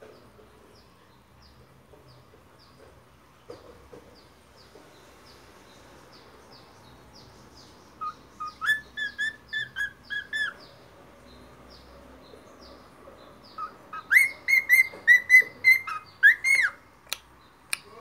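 Cockatiel whistling its song: a run of clear, repeated whistled notes about eight seconds in, and a louder run from about fourteen seconds in, over faint quick high chirps throughout. Two sharp clicks near the end.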